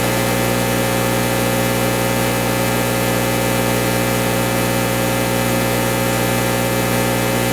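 Steady electrical hum with several overtones stacked above it, not changing in pitch or level.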